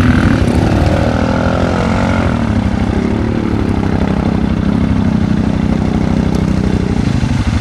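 4x4 ATV engine running steadily, its pitch wavering up and down with the throttle as the quad drives through a muddy water hole.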